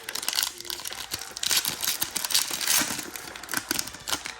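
Foil Pokémon booster pack being torn open and its wrapper crinkled: a run of sharp crackles and rustles, loudest in the middle.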